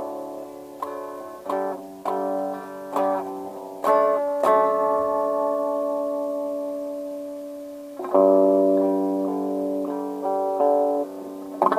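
Guitar, tuned down about a whole step, playing a phrase in G Lydian mode. A handful of picked notes and chords come first, then a chord is left ringing and slowly fading for about three seconds, before more notes are struck.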